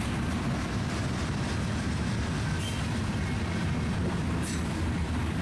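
Freight train of open-top hopper cars rolling past close by, the wheels on the rails giving a steady low rumble. Two brief high sounds break in, about halfway and near the end.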